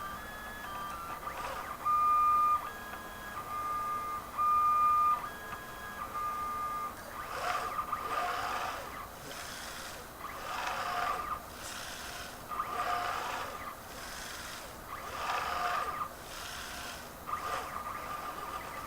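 Stepper motors of a RepRap Prusa 3D printer whining as its axes move on a frame test. For the first several seconds they give steady tones that jump from pitch to pitch, two of them loud. From about seven seconds in, the moves repeat roughly every two and a half seconds, each a whine with a rasping noise.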